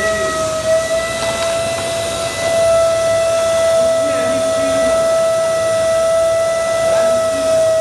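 Bosch GAS 35 vacuum cleaner motor running steadily with a constant high whine.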